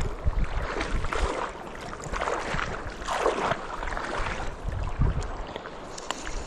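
Rushing river water with wind buffeting the microphone in uneven gusts, giving a low rumble under the water noise.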